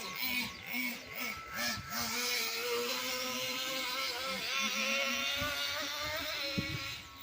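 Traxxas Jato 3.3 nitro RC truck's TRX 3.3 two-stroke glow engine running under throttle. Its pitch swings up and down for the first two seconds, then holds a long stretch of steady high revs.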